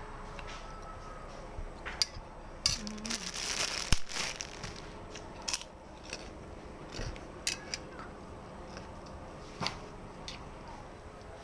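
Close-miked eating of spicy instant noodles: sharp clicks of a utensil on the dish every second or two, and a longer, louder stretch of eating noise from about two and a half to four seconds in.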